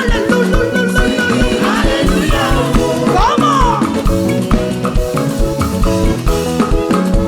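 Upbeat live praise-band music with drum kit, bass guitar and guitar playing a steady beat.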